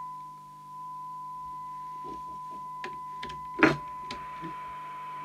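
Steady test tone from the speaker of a Fidelity 2001 FM CB radio as it receives a tone-modulated test signal from a signal generator, its FM detector just peaked for maximum audio. The tone dips briefly near the start. A knock comes about three and a half seconds in, after which a hiss of receiver noise rises behind the tone.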